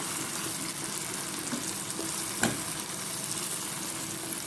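Chicken with tomatoes and pepper sizzling steadily in a cooking pot, with one sharp knock about halfway through.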